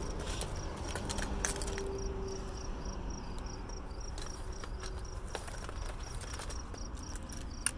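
Insects chirping in a steady, even, high-pitched rhythm, with scattered light clicks over it.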